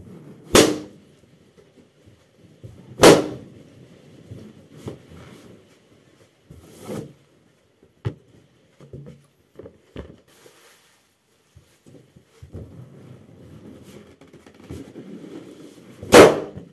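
Latex party balloons being stomped and burst underfoot: three loud pops, about half a second in, about three seconds in, and one near the end, with quieter rubbing and shuffling in between.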